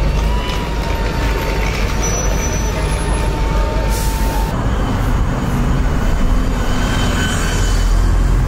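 Street traffic: a heavy vehicle's engine rumbling close by, with a short burst of air hiss about four seconds in, as the steady whine over the rumble stops.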